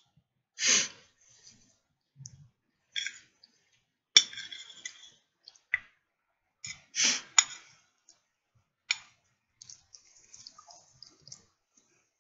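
Close-up mouth sounds of someone eating: wet clicks and smacks of chewing in scattered short bursts, with two louder ones about a second in and about seven seconds in.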